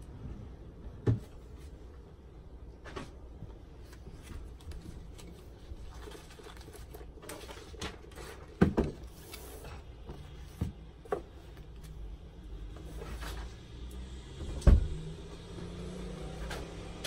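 Desk-top handling of paper sheets and a book: scattered short rustles and knocks, the loudest about fifteen seconds in, over a low steady background rumble.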